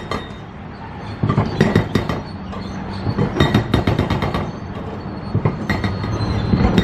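Demolition site noise: a steady low machine rumble with three bursts of metallic clanking and rattling, each a second or less long.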